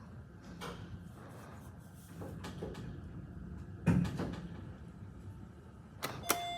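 Elevator in operation: a low steady hum of the car and its machinery, a single thud about four seconds in, then clicks and a steady beep tone starting near the end.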